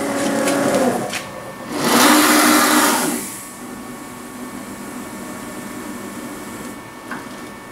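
CNC router's axis drive motors moving the spindle head on an automatic tool-measure routine. A whining traverse runs first, then a louder rushing run about two seconds in, then a quieter steady run that stops shortly before a small click near the end.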